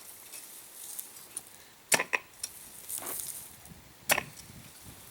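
Steel tines of a homemade hand cultivator, made from an old potato fork, plunged into garden soil and pulled: two sharp strikes about two seconds apart, with scraping rustles of soil between them.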